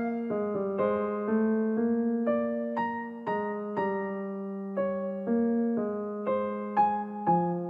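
Background music: a slow, gentle melody on a piano-like keyboard, with a new note struck about every half second and each one left to fade.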